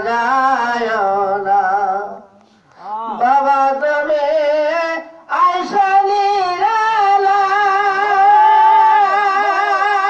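A man singing a Bengali devotional ghazal solo, in long wavering held notes. He breaks off briefly twice, at about two and a half seconds and again at five seconds, then sustains a long line to the end.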